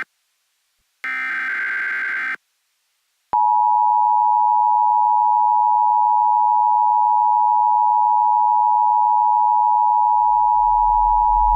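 A short burst of EAS digital header data about a second in. After a brief gap, the Emergency Broadcast System's two-tone attention signal (853 and 960 Hz sounding together) starts about three seconds in and holds steady and loud. A low hum rises underneath near the end.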